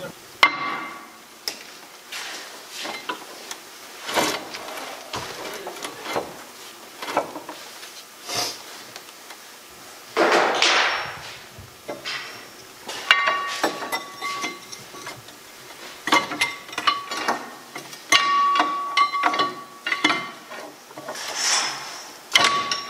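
Irregular metal clanks and clinks, several with short metallic ringing: a long breaker bar and hand tools working against the steel brake assembly inside a Panzer IV tank hull. About ten seconds in comes a louder scrape.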